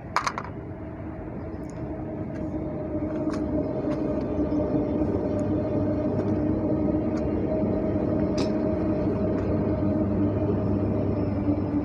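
A vehicle's steady motor drone with a low hum and a steady tone over it, growing louder over the first few seconds and then holding. A sharp knock sounds right at the start, with a few faint clicks later.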